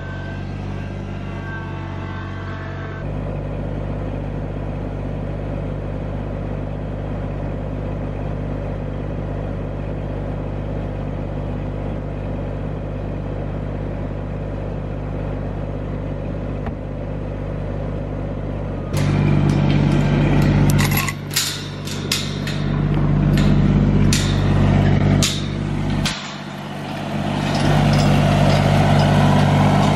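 Kubota compact tractor's three-cylinder diesel engine running steadily at idle. About two-thirds of the way through it gets noticeably louder as the throttle comes up, with a run of sharp clanks and knocks over the next several seconds.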